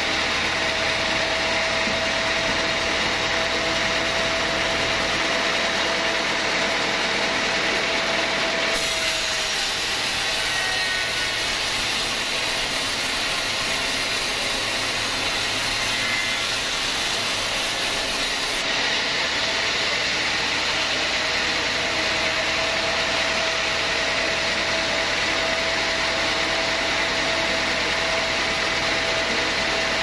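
Log band sawmill running and sawing a teak log lengthwise into boards: a loud, steady machine noise with a thin whine over it that drops out for about ten seconds in the middle and then returns.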